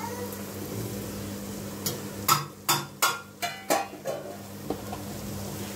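Quick clatter of knocks and scrapes on a steel frying pan, five or six in about two seconds starting about two seconds in, as masala powder is added to the frying onions, over a faint steady hum.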